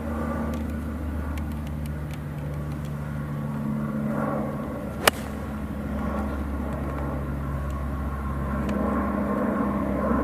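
A single crisp strike of a golf club on a HONMA S golf ball, about five seconds in, hitting a roughly 80-yard approach shot off fairway turf. A steady low drone runs underneath.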